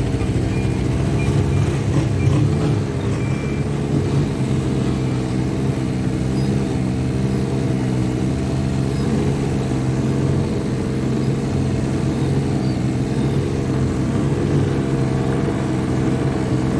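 Snowmobile engine running steadily while riding, its pitch nearly constant with slight wavers.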